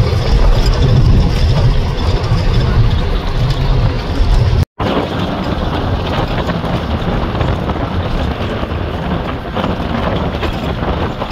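A moving bus's engine and road rumble with wind noise, heard from inside while it drives at speed. The sound drops out for a moment about four and a half seconds in, and the deep rumble is heavier before that gap than after it.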